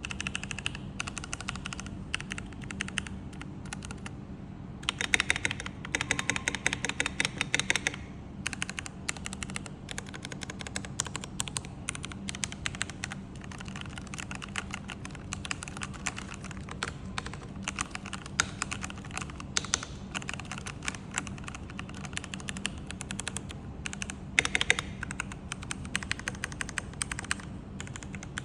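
Typing on a Keychron K8 Pro mechanical keyboard: a steady patter of key clacks, with a faster, louder run of keystrokes from about five to eight seconds in and a short louder flurry near the end.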